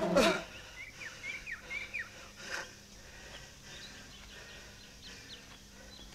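Birds chirping outdoors: short, quick falling chirps in small groups, thickest in the first couple of seconds and fainter after, over quiet outdoor ambience. A brief loud sound sliding downward in pitch opens it.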